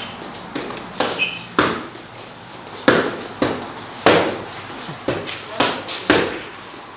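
Punches smacking into focus mitts during pad work: a run of sharp slaps, some in quick pairs, with short pauses between combinations.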